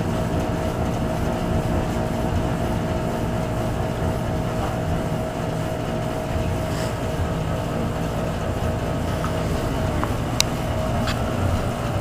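Steady drone of boiler room machinery: a low rumble with a constant hum. Two short clicks near the end.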